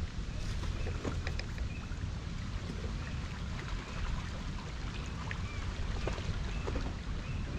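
Wind rumbling on the microphone over water lapping and trickling at the edge of a pond, steady throughout.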